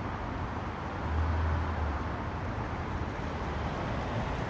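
Steady street traffic noise, with a low engine rumble that swells about a second in and lasts about a second.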